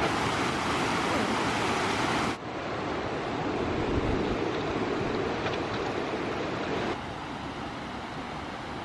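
Steady rushing of a waterfall, dropping abruptly in loudness twice, a little past two seconds in and again near the end.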